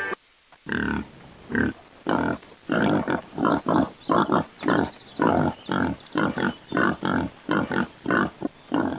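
Wild boar grunting over and over, short rough grunts about two a second, while it forages.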